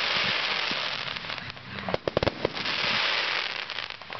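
Aerial fireworks shells bursting overhead, a dense high-pitched crackle from the bursting stars, broken by a quick run of sharp bangs about two seconds in before the crackle returns.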